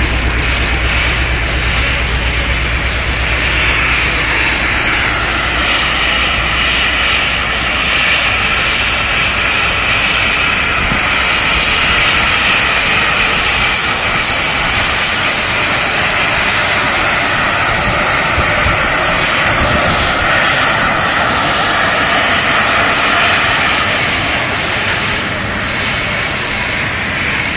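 Dassault/Dornier Alpha Jet's twin turbofan engines whining as it taxis: a steady high-pitched whistle over a loud rush of jet noise. It swells a few seconds in and eases near the end. At the very start, the low rumble of the F4U Corsair's radial piston engine fades out.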